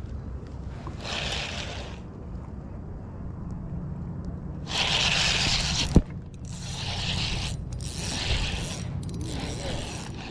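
Spinning rod and reel handled right at the camera while a small fish is reeled in: several bursts of scraping and rubbing, the loudest just before a single sharp knock about six seconds in.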